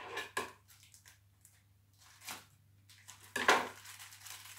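A few short rustles and crinkles of a plastic-wrapped pack of ladyfinger biscuits being handled as the biscuits are pulled out, the loudest a little after three seconds in.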